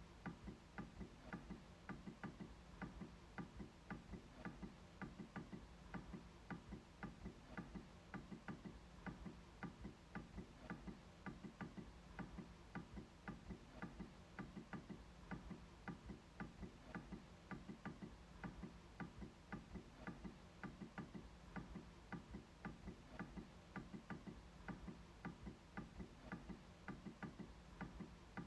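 MacBook trackpad being clicked over and over: faint, short clicks in an even, quick rhythm of several a second.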